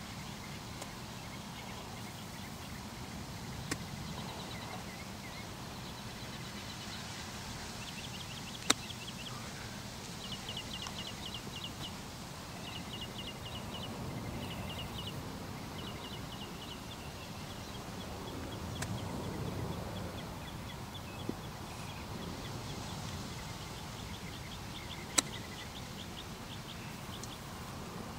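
Golf club striking balls on chip and pitch shots: five sharp clicks spread out, two of them much louder. A bird sings repeated rapid high trills throughout, over steady outdoor background noise.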